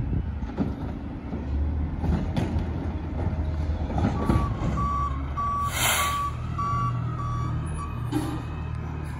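Garbage truck's diesel engine running steadily while its backup alarm beeps about twice a second for about four seconds midway, with one short hiss of air partway through the beeping.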